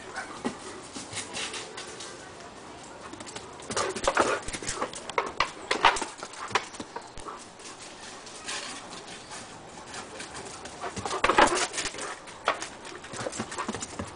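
Two Great Danes playing: short dog noises and scuffling come in irregular bursts, loudest about four to six seconds in and again around eleven seconds.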